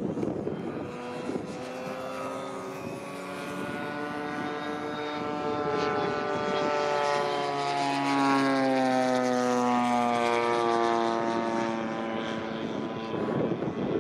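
Radio-controlled model airplane flying past overhead: the steady pitched drone of its engine and propeller grows louder, peaks about eight seconds in, and drops in pitch as the plane goes by.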